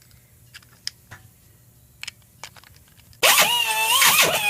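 A few light clicks of parts being handled, then about three seconds in a die grinder starts with a loud high whine, its pitch sagging and recovering as it bites into the metal while grinding out the actuator's mounting holes.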